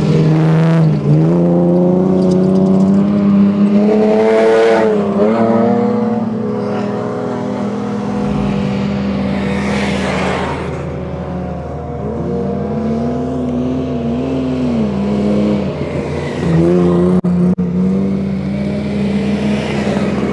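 Toyota Land Cruiser engine revving hard while driving up a sand dune, its pitch dropping and climbing again several times as the throttle is worked, with wavering revs in the middle.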